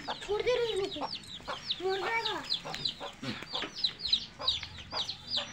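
Chicken chicks peeping rapidly and loudly, a stream of short, high, falling peeps, the distress calls of chicks being chased and caught. A hen gives a couple of lower calls near the start and about two seconds in.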